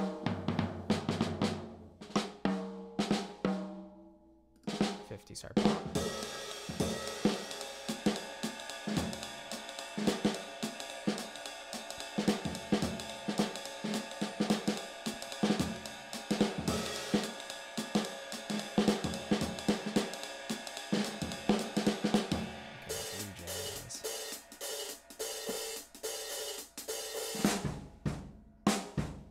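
Sampled acoustic jazz drum kit from the Drum Tree library playing a groove of snare, bass drum and cymbals. There is a short break about four seconds in. From about six seconds to about twenty-two seconds a continuous cymbal wash runs under the beat.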